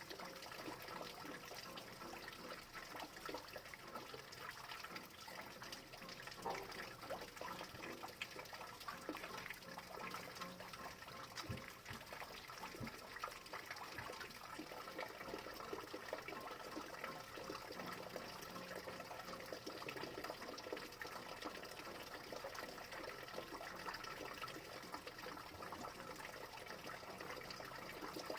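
Steady rain falling, with many separate drops striking and dripping close by.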